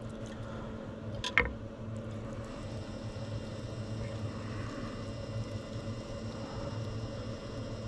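Steady low machine hum, with one sharp knock about a second and a half in.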